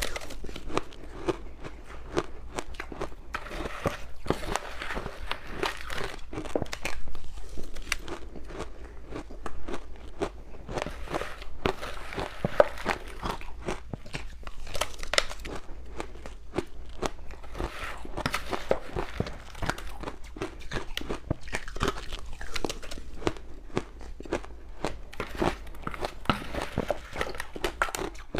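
Ice being bitten and chewed up close, with a steady run of sharp, brittle crunches as the pieces crack between the teeth.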